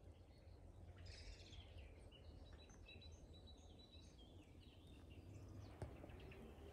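Faint outdoor woodland ambience: small birds chirping on and off over a low, steady rumble, with one sharp click near the end.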